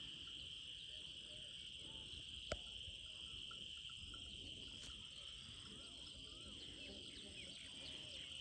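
Faint, steady, high-pitched chirring of an insect chorus in open fields. A single sharp click comes about two and a half seconds in.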